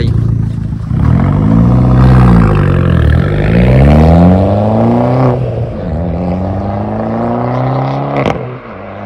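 Fiat 500 Abarth's turbocharged 1.4-litre four-cylinder, stage 1 remapped and breathing through a stainless-steel exhaust silencer, accelerating hard away from the listener through the gears. The revs climb and fall back at each shift, about three and five seconds in and again near the end. Onlookers call it a good sound.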